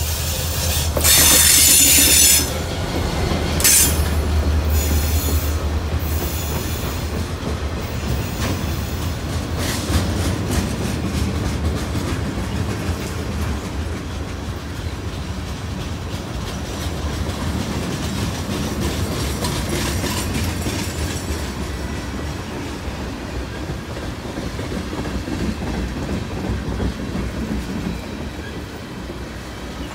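A diesel freight locomotive passes close by with a deep engine rumble. In the first few seconds its wheels give loud high-pitched squeals, the loudest about a second in. Log-laden flatcars and tank cars then roll past with a steady rolling rumble and clicking over the rail joints, fading as the train draws away.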